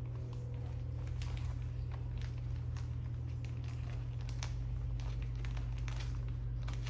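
Scattered light crinkles and taps of a blind-box package being handled and opened, over a steady low hum.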